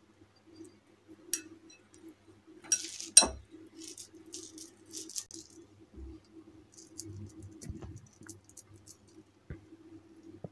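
Hands working crumbly modak mixture in a glass bowl and packing it into a plastic modak mould: light scraping and rustling with a few sharp clinks against the glass, the loudest about three seconds in. A low hum runs underneath.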